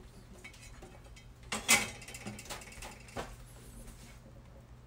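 Small pressed-steel camping griddle knocking and clattering a few times as it is handled and set down after washing at a stainless steel sink, the loudest knocks about a second and a half in.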